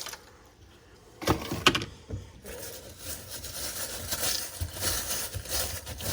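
Debris being cleared by hand from under a fibreglass boat floor: a few sharp knocks about a second in, then irregular scraping and rustling.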